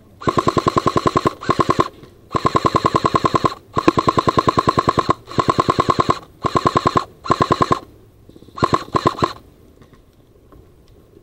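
Airsoft gun firing on full auto in about eight rapid bursts, short and long.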